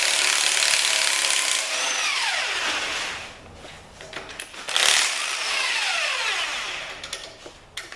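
Hand-held power tool run twice on a socket, each time followed by a falling whine as the motor winds down: backing out the cylinder-head bolts of a cast iron Ford 302 V8.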